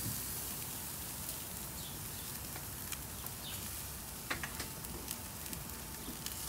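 Shell-on prawns sizzling on a gas grill's grate: a steady hiss with occasional crackles.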